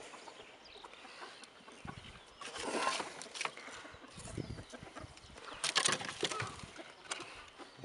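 Leafy greens rustling and the wooden slats of a rabbit hutch knocking as a hand pushes fresh branches in, in a few irregular bursts.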